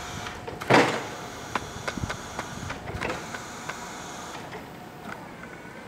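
Hyster N40FR electric reach truck operating: a steady electric motor whine with a loud clunk a little under a second in and several lighter clicks and knocks over the next few seconds, the whine stopping near the end.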